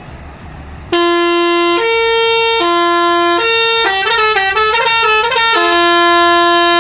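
Bus telolet musical horn (Basuri type) playing a tune. It starts about a second in with long notes alternating between two pitches, runs through a quick warbling sequence of notes in the middle, then holds one long note.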